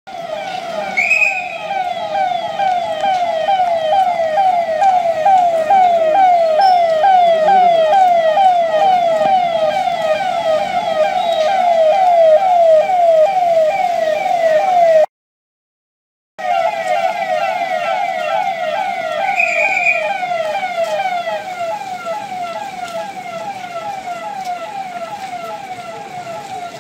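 Police vehicle's electronic siren sounding a fast repeating wail, its pitch sweeping down again and again several times a second. It cuts out briefly about halfway through, then resumes and grows a little fainter near the end.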